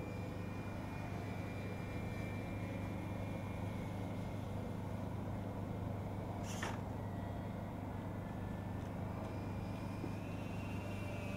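Dynam Grand Cruiser RC model plane's twin electric motors and propellers whining steadily in flight, the thin tones wavering slightly in pitch as it passes, over a low steady hum. A single sharp click about two-thirds of the way through.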